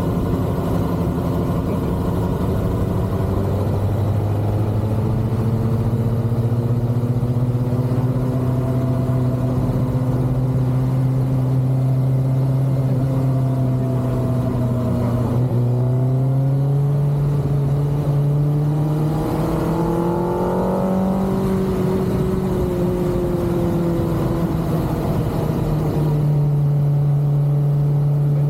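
Kawasaki ZX-6R's inline-four engine running under way. Its pitch holds fairly steady, dips briefly about halfway through, climbs for a few seconds as the bike speeds up, then eases back down.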